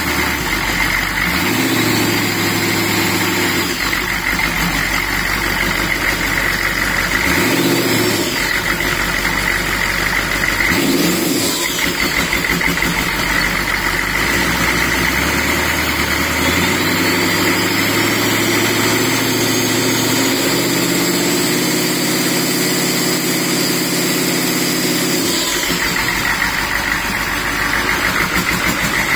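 A 6.5 L turbo diesel V8 with a center-mount turbo, running on an engine stand and revved by hand: several short blips, then a longer pull held at higher revs for about ten seconds before it drops back to idle. A faint high whistle rises and falls with the revs.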